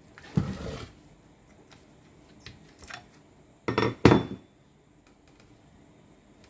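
Metal parts and tools clanking and knocking as they are handled, a few separate knocks with the two loudest close together about four seconds in.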